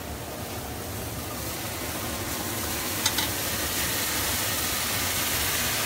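Pan of mushrooms, onion and garlic sizzling, the sizzle swelling about a second and a half in as vodka is poured into the hot pan. Two short clicks a little after the three-second mark.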